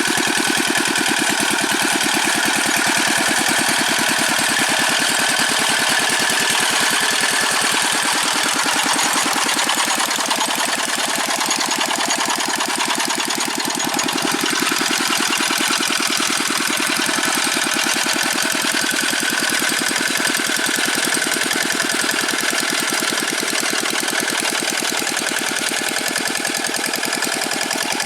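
Old Dongfeng single-cylinder diesel engine of a Quick G600 hand tractor running steadily with a fast, even knock, a little quieter after about ten seconds.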